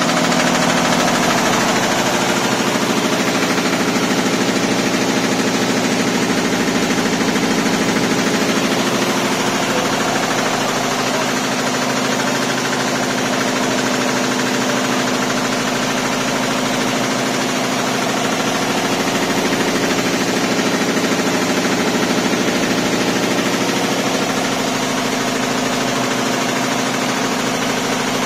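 Multi-needle quilting embroidery machine running with its 64 needles stitching, a rapid, steady mechanical clatter.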